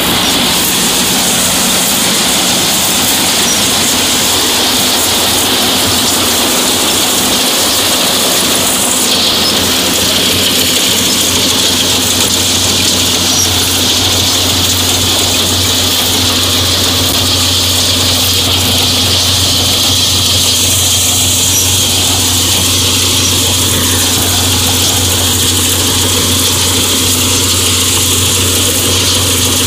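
Sonalika 750 III tractor-mounted Balkar mini combine harvester running while it cuts wheat: a steady, loud din of the tractor engine and the threshing machinery, with a low hum and a constant high hiss, without change.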